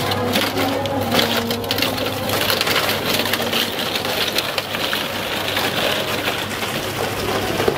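A spinning frozen ice-cream roller drum running with a steady low hum, while a scraper pressed against it shaves off frozen fruit ice cream with a continuous scraping noise that is strongest in the middle.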